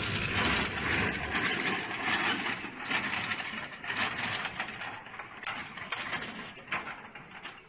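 Light helicopter wrecked by ground resonance, its rotor head and drivetrain still turning and clattering with a dense mechanical rattle that fades steadily over several seconds.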